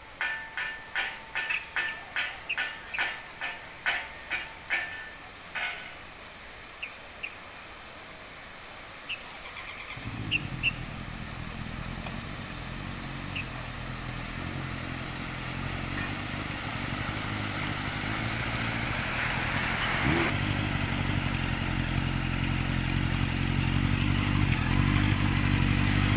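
Vehicles driving through floodwater on a road: a low engine hum comes in about ten seconds in and grows louder, with a rising rush of water thrown up by the tyres. Before that there is a rapid series of short pips, two or three a second, for about five seconds.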